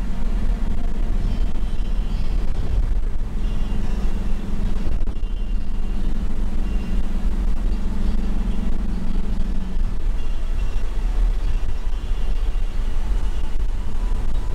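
Steady in-cabin drone of a Toyota HiAce Commuter van on the move: engine hum over a low tyre-and-road rumble, with the hum easing off after about ten seconds.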